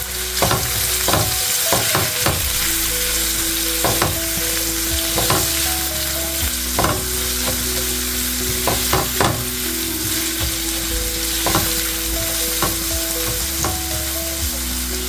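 Sliced onions, garlic and green chilies sizzling in hot oil in a pan, with a spatula stirring and scraping against the pan many times. The onions are frying until just soft, with salt and turmeric just added.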